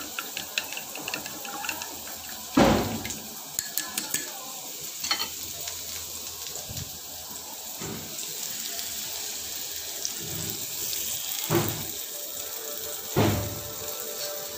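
Chopsticks clicking quickly against a ceramic bowl as eggs are beaten, then a few knocks and bumps of the bowl. From about halfway through, a steady hiss of beaten egg frying in a wok.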